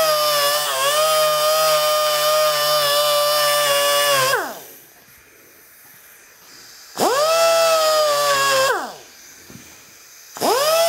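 Die grinder with a sanding roll running against the corner of a steel connecting rod cap, breaking its sharp edge: a steady high whine with hiss. It runs for about four seconds and spins down with falling pitch, then runs again briefly about seven seconds in, spins down, and starts once more near the end.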